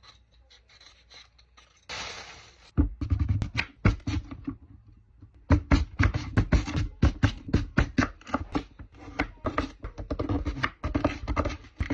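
Kitchen prep sounds: a short hiss about two seconds in, then a quick, uneven run of knocks, taps and scrapes from utensils and cookware being handled.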